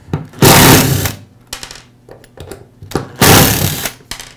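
Two screws in turn being driven out of the cord clamp of a DeWALT angle grinder's plastic housing with a screwdriver, two loud noisy bursts each just under a second long, about two and a half seconds apart.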